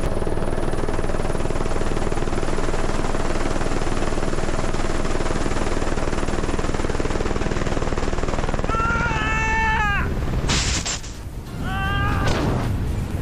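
Helicopter rotor and turbine heard from inside the cabin: a loud, steady rush with a fast, even blade beat. About nine seconds in the rush breaks up, and two short high pitched sounds are heard with a sudden burst of noise between them.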